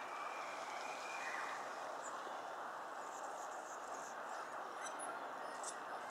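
Male Anna's hummingbird giving a few faint, brief, high-pitched chips, about two seconds in, near five seconds and near the end, over a steady background noise.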